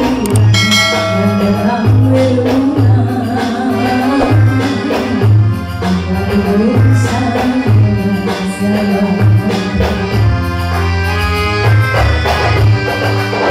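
A woman singing with live keyboard accompaniment and a pulsing bass beat, amplified through a Bose array PA system.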